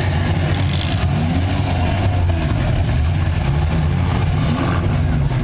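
Demolition derby cars' engines running steadily together, loud, with a constant low drone and a noisy wash above it.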